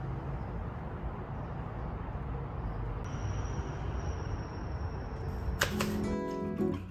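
Steady outdoor rushing noise, heavy in the low end, typical of wind on the microphone. Near the end it gives way to a few sharp clicks as acoustic guitar music starts.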